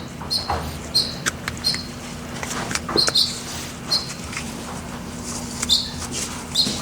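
Light clicks and taps of small metal tools and parts being handled while a new U-cup seal is worked into a hydraulic cylinder gland, scattered irregularly, with a few short high chirps and a steady low hum underneath.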